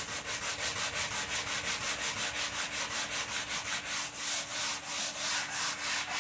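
Hand sanding block rubbed back and forth over a wooden window sill in quick, even strokes, feathering a trimmed wooden plug flush with the surface.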